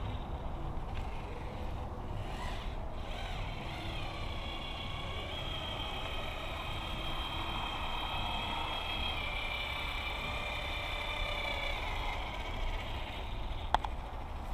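Cordless battery-powered caulking gun's motor whirring steadily as it pushes out a bead of windshield urethane, its whine shifting a little in pitch. It stops near the end, followed by a single sharp click.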